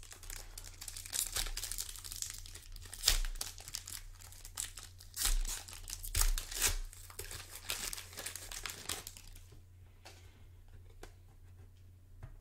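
Plastic wrapper of a 2017-18 Prizm Fast Break basketball card pack being torn open and crinkled by hand, in repeated crackling bursts that die down for the last few seconds, over a steady low hum.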